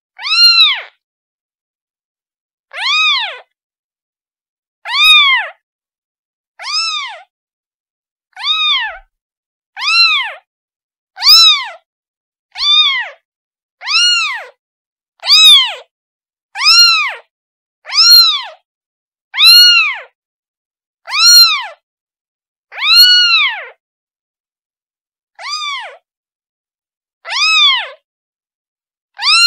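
A kitten meowing over and over, calling for its mother: short, high-pitched meows that rise and fall in pitch, about one every second and a half, with silence between them.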